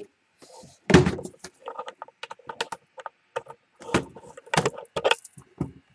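Handling noise from a laptop being carried and moved: a loud thump about a second in, then a run of irregular knocks and clicks.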